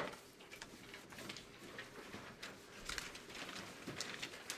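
Faint rustling and light clicks of sheets of paper being handled and a page turned over.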